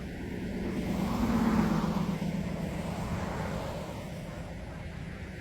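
A vehicle passing by: a low rumble that swells to its loudest about a second and a half in, then fades away.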